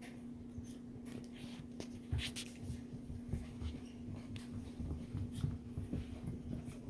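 Two puppies play-wrestling on a rug: scuffling, scratching paws and soft thumps of their bodies, getting busier about two seconds in, over a steady low hum.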